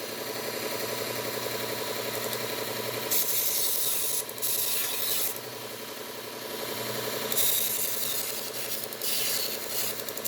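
Bucktool belt grinder running at slow speed with a 120-grit Cubitron belt, its motor humming steadily while a knife blade is drawn across the belt in several separate grinding passes, each a hissing scrape.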